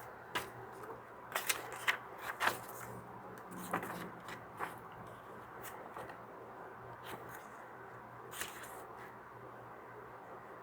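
Plastic kit parts and packaging being handled: scattered light clicks, knocks and rustles, more frequent in the first five seconds and sparser after, over a faint steady low hum.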